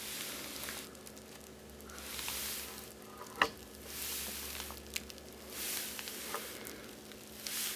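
Oliso steam iron pressed down and moved over a cotton pressing cloth on organza: soft hissing swells every second or two as it is pressed and shifted, with a sharp click about three and a half seconds in.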